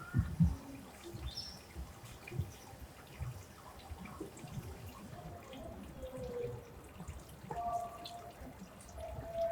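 Water dripping and trickling, with scattered low knocks, the loudest right at the start.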